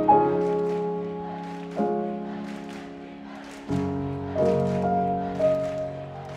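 Background music: piano chords struck about every two seconds and left to ring out, over a light, steady ticking beat.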